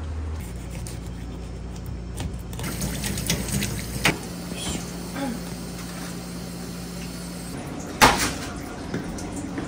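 A sasara whisk brush scrubbing the belly cavity of a gutted Japanese Spanish mackerel under running tap water, with a few sharp knocks, the loudest about eight seconds in.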